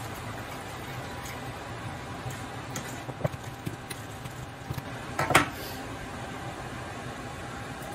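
A utensil stirring diced potatoes and beaten egg in a ceramic bowl, with small clicks against the bowl, then one louder ringing clink a little over five seconds in. A steady hiss underlies it.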